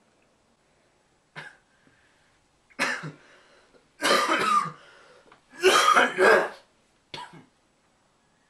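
A man coughing and retching in five harsh bursts, the two longest and loudest about four and six seconds in.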